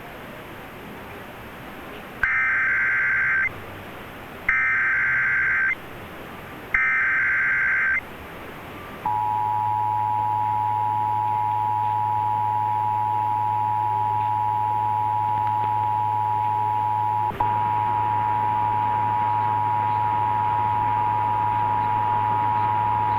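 Emergency Alert System SAME header sent three times: three harsh data bursts of about a second each. About a second later the EAS two-tone attention signal comes in and holds steady over a low hum, with one brief click partway through, heard over AM radio.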